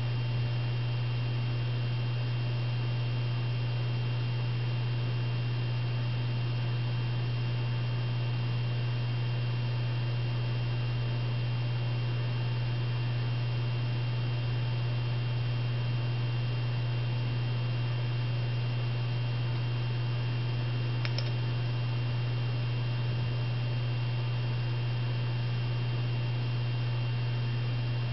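Steady low electrical hum with fainter steady tones and hiss above it, unchanging throughout; a single faint tick about three-quarters of the way through.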